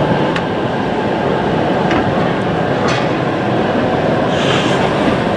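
Gauge 0 model trains running on a layout: a steady rolling rumble with a few faint clicks and a short hiss about four and a half seconds in.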